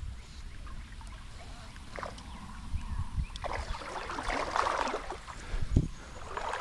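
Water sloshing and splashing around the angler, with a low rumble of wind on the microphone and a single knock near the end.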